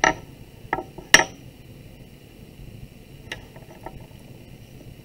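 Clay mug cylinder being handled and shaped on a wooden board: three sharp knocks in the first second and a half, then a few lighter taps about three and a half seconds in.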